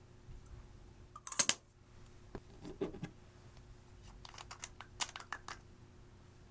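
Crackling and clicking from hands working the eyeshadow and slime materials: a sharp crackle about a second and a half in, a duller crunch about a second later, then a run of small clicks and crackles near the end.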